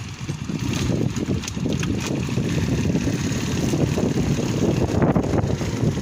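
Wind buffeting the microphone: a choppy, loud rumble with no steady pitch.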